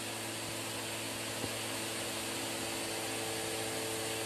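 Steady hiss with a low, even hum underneath and one faint tick about a second and a half in.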